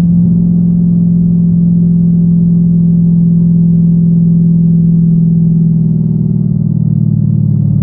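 Straight-piped 2014 Dodge Challenger R/T's 5.7 L HEMI V8, with catalytic converters but no muffler or resonator, droning steadily at a constant cruising speed. It is heard from inside the cabin with the windows down.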